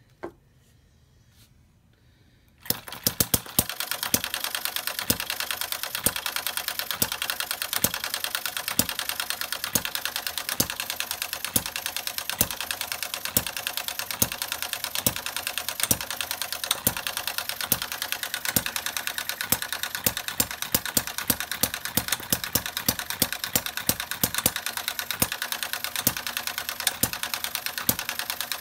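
A model hit-and-miss gas engine starts about three seconds in and runs well, with a fast mechanical clatter and sharp firing pops a few times a second. A single click comes just before, as the ignition battery lead is clipped on.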